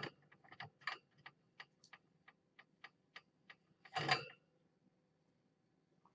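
A run of short light clicks, about three to four a second, followed about four seconds in by a single louder rustling burst.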